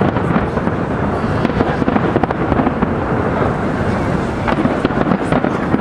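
Large fireworks display: a dense, unbroken barrage of shell bursts and crackle, many reports overlapping without a pause.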